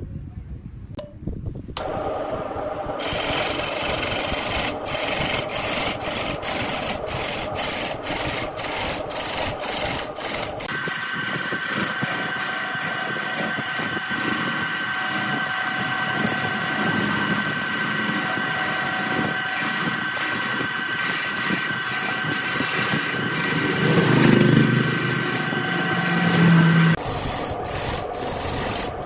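Wood lathe starting up about two seconds in and spinning a bark-covered log while a gouge roughs it down: a steady grinding cut broken by repeated knocks as the tool meets the uneven surface. A steady whine joins partway through.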